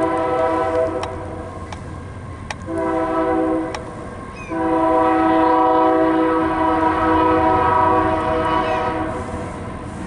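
Union Pacific freight locomotive's multi-chime air horn blowing a crossing signal: a long blast ending about a second in, a short blast, then a long blast of about four and a half seconds that stops near the end.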